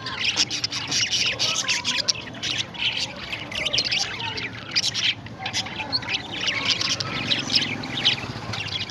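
Parrots chirping and squawking: many short, quick calls overlapping without a break.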